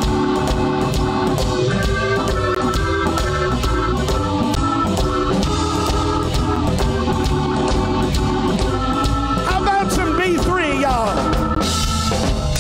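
Live blues band playing an instrumental passage: electric guitar over bass, drums and organ, with wavering, sliding notes about ten seconds in.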